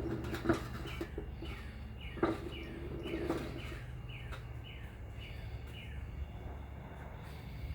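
A bird calling outdoors: a rapid series of short, downward-slurred chirps, about three a second, that stops about five and a half seconds in. A couple of sharp knocks sound in the first few seconds, over a steady low background rumble.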